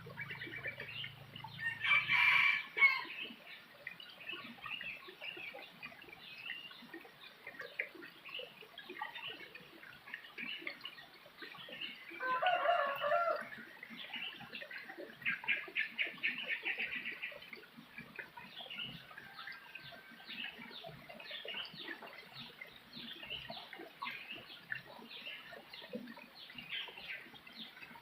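A rooster crowing once, about twelve seconds in, over steady chirping from small birds. There is another loud call about two seconds in, and a rapid trill from about fifteen to seventeen seconds.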